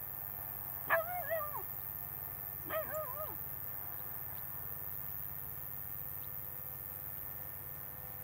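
Alaskan malamute making two short, wavering whining calls, a little under two seconds apart.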